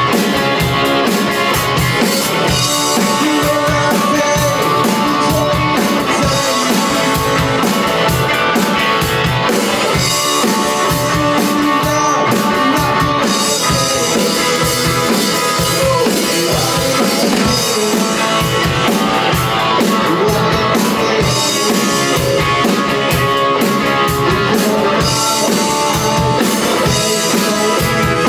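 Electric guitar played through a 1967 Supro Thunderbolt valve combo amplifier, with a drum kit keeping a steady rock beat.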